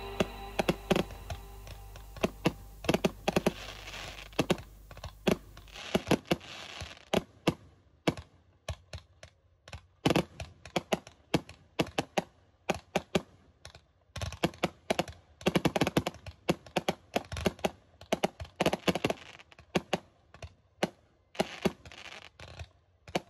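Fireworks crackling: a quick, irregular run of sharp cracks and pops, with thicker patches of crackle here and there. Music underneath fades out in the first few seconds.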